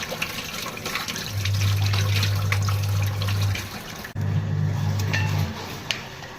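Running water with small splashes and clicks, and a low steady hum that comes in about a second in and drops out twice.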